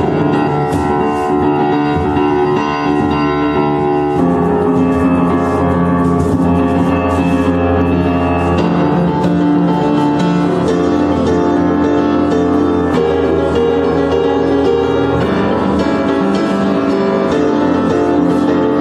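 Yamaha U1 upright piano playing a film-score theme: sustained chords under a melody, the harmony changing every few seconds.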